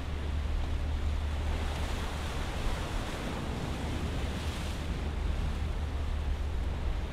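Choppy open sea washing steadily, with a low rumble of wind on the microphone; the wash swells and fades in the middle.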